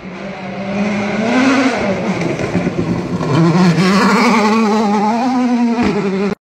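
Rally car engine revving hard as it comes through a corner and passes close by, its pitch rising and dropping several times with the throttle and gear changes. The sound cuts off abruptly near the end.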